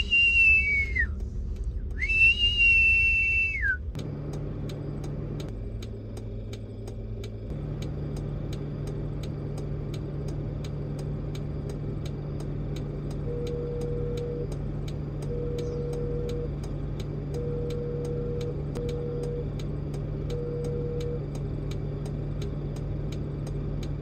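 Two long whistled commands to a working sheepdog, each held on one high pitch and dropping at the end, in the first four seconds. After them, the vehicle's engine runs steadily, heard from inside the cab, with a faint regular ticking.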